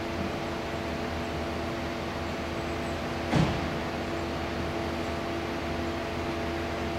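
Steady hum of fire engines' diesel engines idling in the station bays, several fixed tones over a low rumble. A single short, sharp knock about three and a half seconds in.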